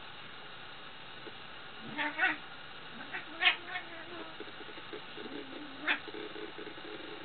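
Cats meowing and yowling in short complaining calls as two cats squabble over one bed. There are three calls: about two seconds in, about three and a half seconds in, and a shorter one near six seconds.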